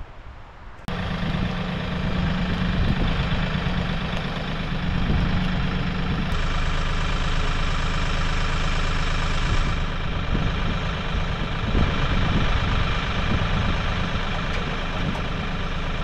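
Compact tractor's engine running steadily at idle, setting in abruptly about a second in.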